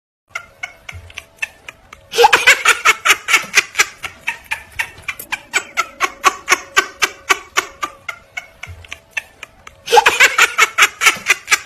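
Laughter in quick, even ha-ha pulses, about four a second, swelling louder about two seconds in and again near the end.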